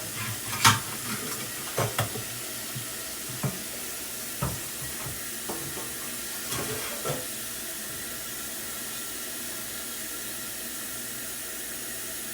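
Kitchen tap running into a sink as a steady hiss, filling it to soak removed stove parts. Several sharp knocks and clanks in the first seven seconds, the loudest near the start, as the parts are handled in the sink.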